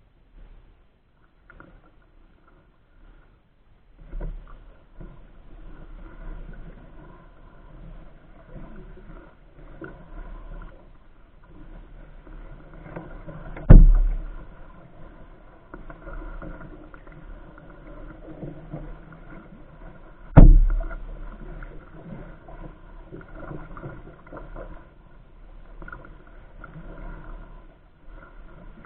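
Double-bladed paddle strokes and water swishing against a Hornbeck pack canoe as it moves through a lily-pad pond, starting after a few quiet seconds. Two sharp knocks stand out, one about halfway through and another about seven seconds later.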